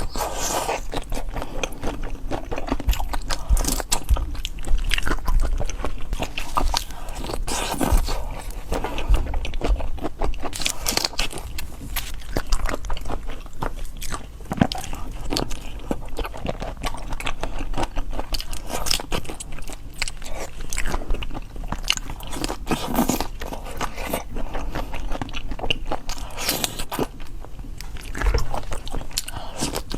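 A person biting and chewing crunchy food close to the microphone: a steady run of crisp crunches with no pause.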